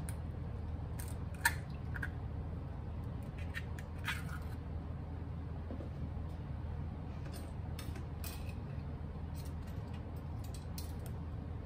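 Low steady hum of kitchen room tone with scattered small clicks and taps of hands handling things on the counter, one sharper tap about a second and a half in.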